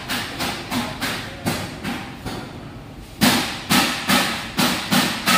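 A regular series of sharp knocks, two to three a second, pausing briefly midway and coming back louder.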